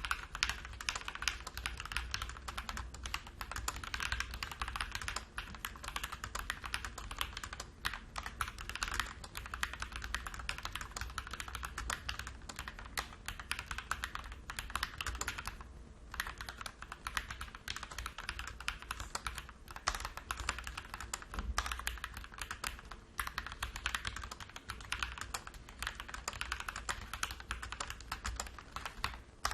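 Fast, continuous typing on a MIIIW ART Series 68-key mechanical keyboard with Gateron Yellow Pro linear switches, a dense run of key clicks with a brief pause about halfway through.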